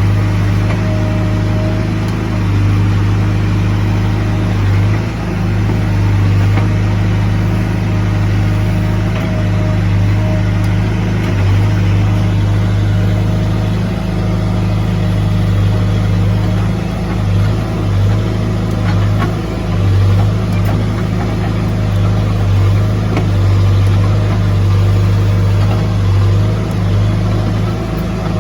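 CASE backhoe loader's diesel engine running steadily with a deep drone, its loudness rising and falling slightly as the load changes.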